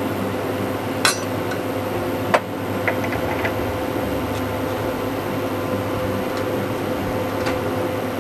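Chana dal boiling in an open pressure-cooker pot: a steady bubbling hiss over the electric cooktop's steady hum, with two sharp clicks about a second and two and a half seconds in.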